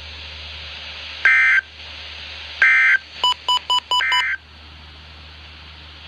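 NOAA Weather Radio end-of-message signal played through a Midland weather radio's speaker: three short, harsh digital data bursts about a second and a half apart, closing the severe thunderstorm watch broadcast. A quick run of five short beeps comes just before the third burst, over a steady low hum and hiss.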